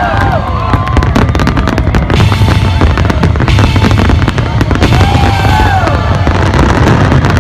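Fireworks going off: a dense run of rapid crackling pops over a continuous loud rumble, with music playing along.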